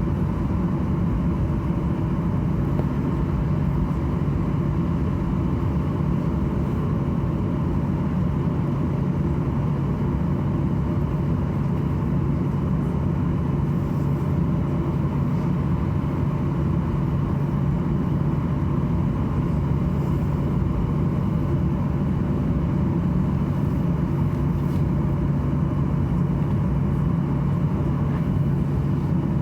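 Steady hum and rush of air inside the passenger cabin of a Boeing 737-800 on the ground, with an even low drone throughout.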